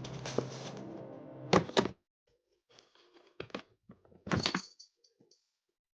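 Background music that cuts off about two seconds in, then a few scattered thuds and knocks, the loudest near the end.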